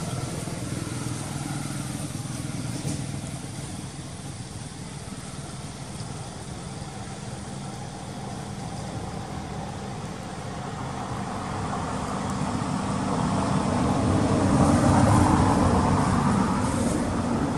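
A motor vehicle's engine running steadily, growing louder from about ten seconds in, loudest near the end, then easing off.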